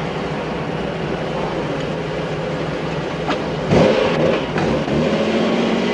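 Classic V12 sports car engine idling steadily, revved once in a short blip a little under four seconds in before dropping back to idle.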